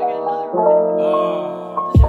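Background music: soft lo-fi piano chords held and changing, with a low drum beat landing right at the end.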